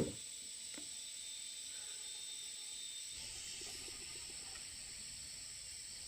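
Faint outdoor background with a steady high-pitched insect chirring, and a soft knock about a second in.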